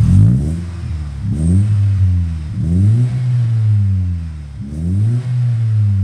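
GM C2NE 2.0 four-cylinder engine revved four times through a JK 2.5-inch sport muffler held against the exhaust pipe: a deep exhaust note that rises with each blip of the throttle, the last two held briefly, then falls back to idle.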